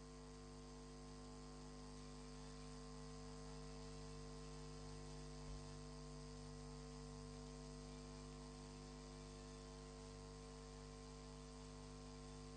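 Near silence: a faint, steady electrical mains hum with light hiss, and a tiny click about five and a half seconds in.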